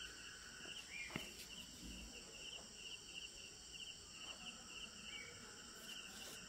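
Faint, even chirping of a cricket, a rapid run of short chirps at one pitch. A soft tap of the set square or pencil on the drawing board comes about a second in.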